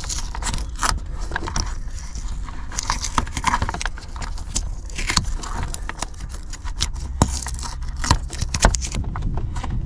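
Tape being picked and peeled off a wiring-loom connector and the wire harness handled by hand: a run of scratchy crackles and small clicks over a low steady rumble.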